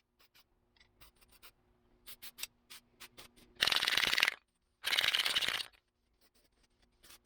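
Aerosol spray paint can spraying two short hisses, each under a second, about three and a half and five seconds in, with light clicks and handling sounds before them.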